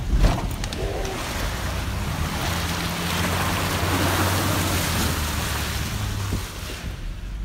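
Pickup truck driving through deep floodwater on a dirt road: water rushes and splashes against the truck, with a heavy splash just after the start and the engine humming underneath.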